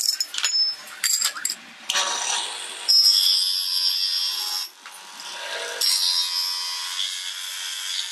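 Worn bearing squealing, with metallic clicking and rattling at first, then a steady high-pitched squeal that drops away briefly near the middle and returns. The noise is the sign of a failing bearing.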